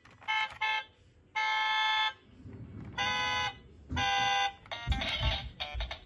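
Road Rippers toy Nissan 350Z convertible's electronic sound chip, set off by its side buttons: two quick honks, then three longer steady honks. Near the end a busier electronic effect with low thumps begins.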